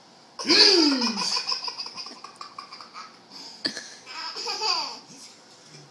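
Baby laughing hard at an adult's sneezes: a loud squealing laugh about half a second in, falling in pitch, that runs into quick pulsing giggles, then a second burst of laughter about four seconds in.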